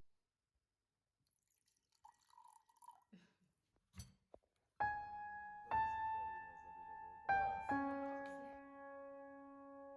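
Soft background piano music: slow single notes, each ringing out, begin about five seconds in after a few seconds of near silence.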